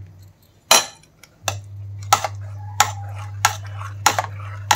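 Metal spoon knocking against a cooking pot in a steady rhythm, about three strokes every two seconds, as the vegetables are stirred. A steady low hum runs underneath from about a second and a half in.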